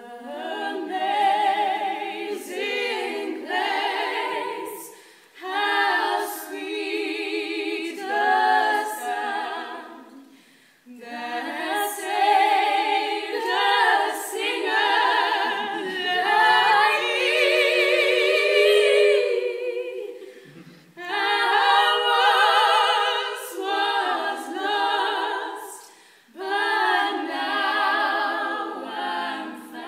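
Female trio singing a cappella in barbershop-style close harmony, starting from silence, in phrases of a few seconds with vibrato and short breaks between them.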